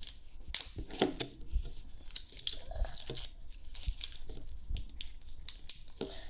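Toy packaging being handled and opened: irregular crinkling, rustling and tearing, with small clicks and taps.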